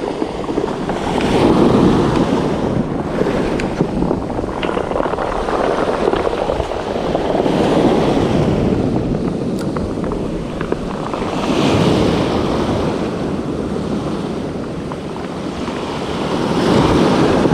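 Sea waves breaking and washing up a pebble beach, the surf swelling four times, about every four to six seconds.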